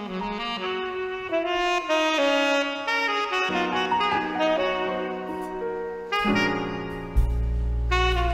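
Saxophone playing a slow melodic intro line, with sustained chords underneath. About six seconds in, the bass and drums join and the band plays on at full level.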